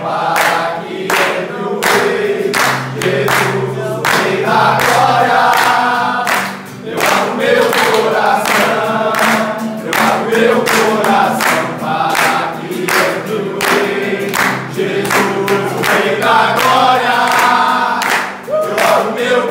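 A group of men singing a chant in chorus while clapping their hands in a steady beat, about two claps a second.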